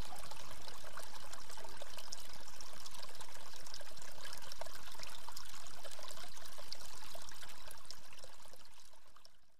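Spring water pouring and trickling out of rocks into a small creek, a steady splashing that fades out over the last two seconds.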